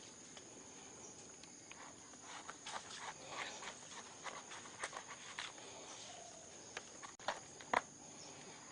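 Faint steady high trill of insects, with scattered light clicks and rustles; a couple of sharper clicks near the end.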